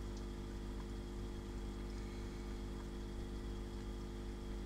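Aquarium pump humming steadily: a constant low electric hum made of several level tones, with a faint hiss above it.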